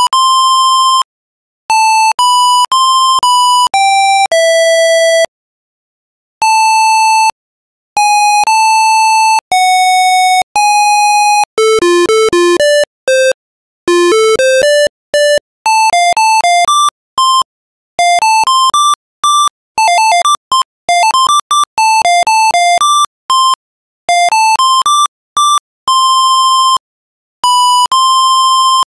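IBM PC speaker playing a one-voice square-wave beep melody from a GW-BASIC program, one note at a time with short silent gaps between. Longer held notes give way from about twelve seconds in to fast runs of quick notes, then a few held notes again near the end.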